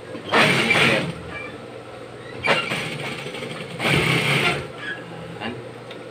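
Juki industrial single-needle sewing machine stitching in a few short bursts, the longest about a second, over the steady hum of its motor.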